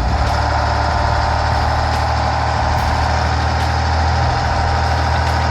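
Heavy truck engine running steadily, with a constant low hum.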